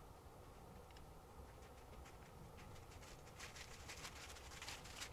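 Near silence with faint rustling and light crackles, denser from about three seconds in.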